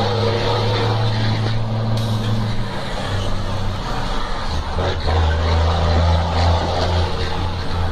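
Mercedes-Benz 1620 truck's diesel engine pulling along a street, heard from inside the cab. The engine note drops and breaks up about four seconds in, then comes back strong about a second later.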